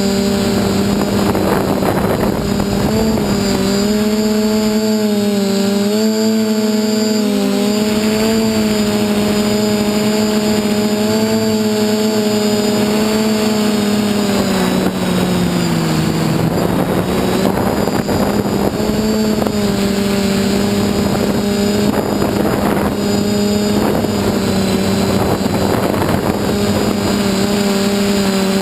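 DJI F450 quadcopter's electric motors and propellers buzzing in flight, heard from on board. The pitch wavers with the throttle and dips about halfway through before coming back up, with bursts of wind rushing over the microphone.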